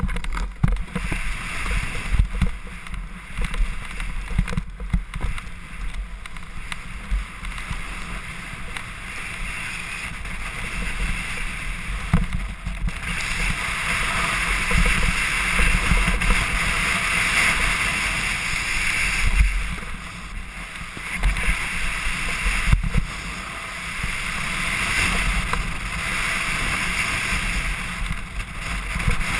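Snowboard edges scraping over packed snow with wind rumbling on a helmet camera, a continuous rush from a snowboard riding fast down a snowboardcross course. The rush grows louder about 13 seconds in.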